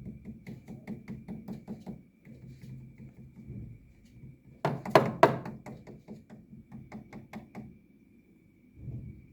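Grey parrot imitating a dog: a rapid run of short, low huff-like sounds, about five a second, with two much louder ones about five seconds in.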